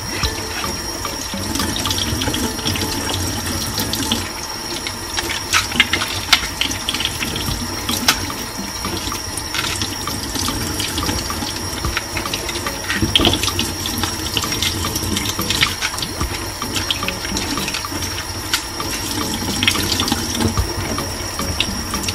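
Kitchen tap running into a stainless steel sink, with scattered small clicks and scrapes of a paring knife and banana peel being worked under the water.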